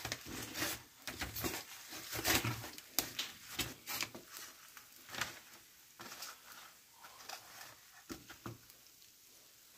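Irregular close-up clicks, taps and rustles of things being handled, busiest in the first half and thinning out toward the end.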